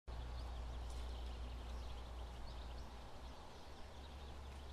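Outdoor rural ambience: small birds chirping in quick scattered calls over a steady hiss and a low rumble.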